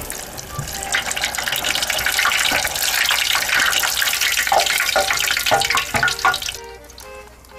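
Battered tiger puffer milt (shirako) tempura deep-frying in hot oil: a loud, dense crackling sizzle that dies away suddenly near the end, when the pieces are lifted out of the oil with a mesh strainer.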